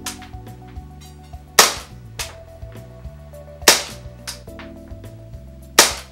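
Gas blowback airsoft pistol, a ShowGun Tokarev TT-30 replica running the WE system, firing single shots through a chronograph: three sharp cracks about two seconds apart.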